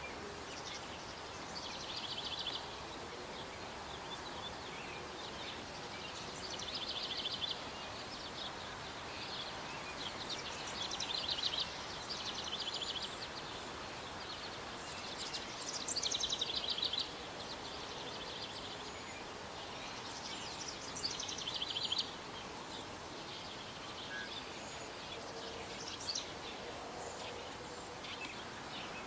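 A small bird singing: short, high, trilled phrases every four or five seconds, about six in all, over steady outdoor background noise.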